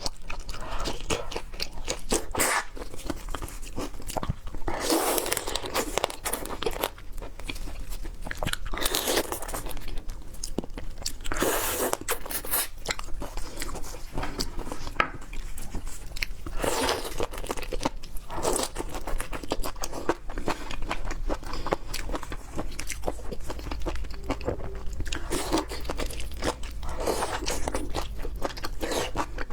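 Close-miked chewing and biting of raw seafood, with many small sharp clicks and wet mouth sounds. A longer, noisier chewing pass comes every few seconds.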